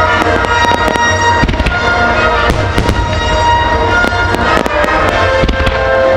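Starmine fireworks barrage: rapid bangs and crackles, several a second, over a constant low rumble, with music playing underneath.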